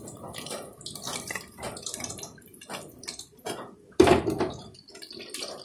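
Hot frying oil being poured off from a wok past its held-on lid, trickling and dripping with scattered crackles. A loud clunk comes about four seconds in.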